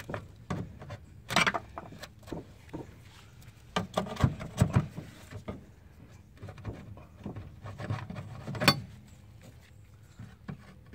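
Pry bar scraping and chipping old caulking and mastic off a plumbing vent flashing on a concrete tile roof: irregular scrapes and metal knocks, with a sharp knock late on the loudest.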